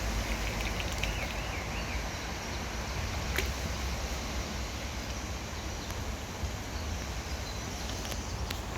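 Outdoor ambience: a steady low rumble with an even background hiss and a couple of faint clicks.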